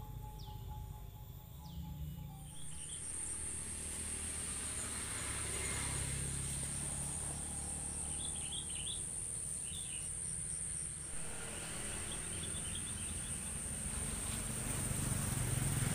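A steady high-pitched insect drone starts about two and a half seconds in, with short bird chirps scattered through, over a low steady background rumble.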